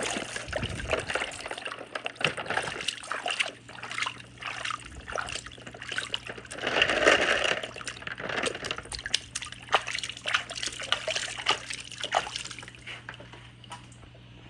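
Water trickling and sloshing through a toy marble run, with many small clicks and knocks of marbles and balls, swelling about halfway and tapering off near the end.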